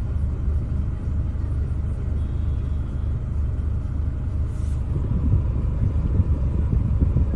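Steady low rumble of a car engine running, with some irregular louder low thumps in the second half.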